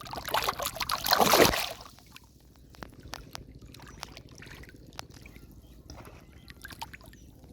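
Shallow river water splashing hard for under two seconds, then quieter trickling with scattered small splashes and clicks.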